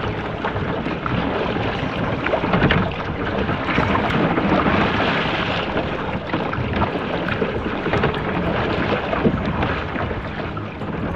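Water splashing from paddle strokes and rushing along the hull of a Viking Crayfish 440 kayak under way in choppy sea, with wind buffeting the microphone.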